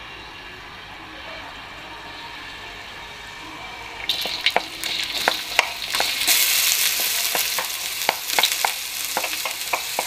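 Chopped onion hits hot oil in a wok about four seconds in and starts sizzling loudly. A wooden spatula clicks and scrapes against the wok as the onion is stirred.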